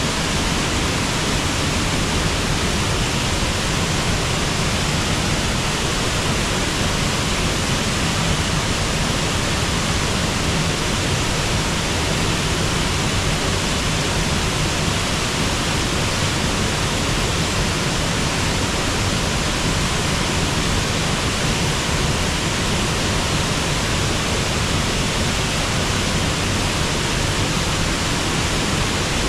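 River waterfall: water pouring and rushing in a steady, unchanging wash of noise.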